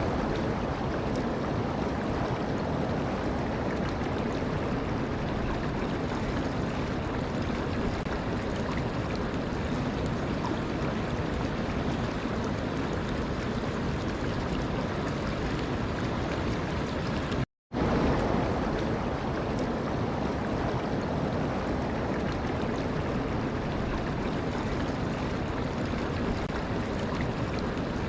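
Steady rushing water, an even hiss with no tune. It drops out for a split second about two-thirds of the way through, then carries on.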